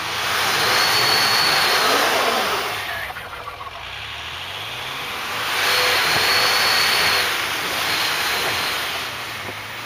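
Land Rover Discovery 3 powering up a snowy track, its engine revving in two surges, about half a second in and again around five and a half seconds, as its tyres spin and throw snow.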